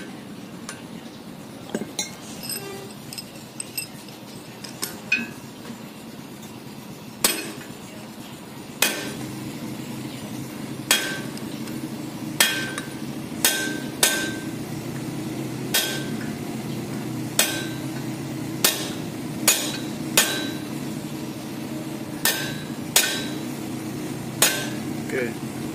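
Repeated hammer blows on a steel socket held against a car's front wheel hub, driving the hub out through the wheel bearing in the steering knuckle. Sharp metallic strikes come about once a second, each with a short ring.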